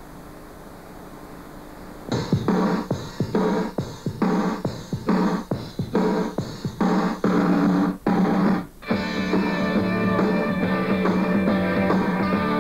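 Faint tape hiss, then about two seconds in a band song starts with short stabbed chords and drum hits separated by brief gaps. From about nine seconds in the full band plays continuously.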